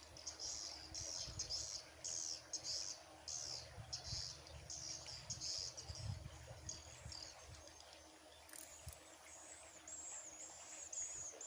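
Birds chirping in quick, high bursts, then a different repeated high call about two-thirds of the way in. Low muffled bumps sound underneath during the first half.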